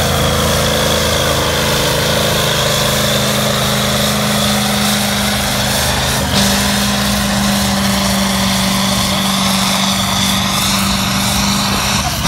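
Vintage diesel tractor engine running hard at steady high revs under full load, dragging a weight-transfer sled on a pulling track. A high steady whine sits over the engine note.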